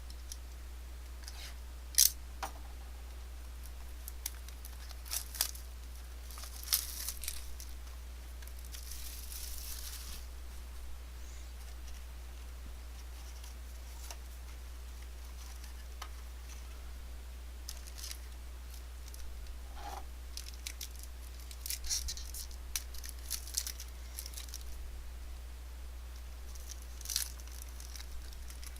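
Trading-card packaging being torn open and handled: scattered sharp clicks, crinkles and short tearing rustles from the box and its wrapped packs, over a steady low hum.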